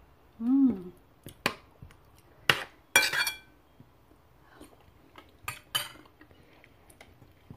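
Metal cutlery clinking against a plate during a meal: a series of sharp clinks, the loudest about three seconds in. A brief vocal sound comes just before the first clink.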